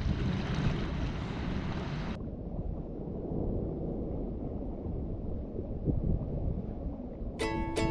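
Wind buffeting the microphone at the seashore over the wash of small waves. About two seconds in the sound cuts to a duller, lower wash of shallow water, and plucked-string music comes in near the end.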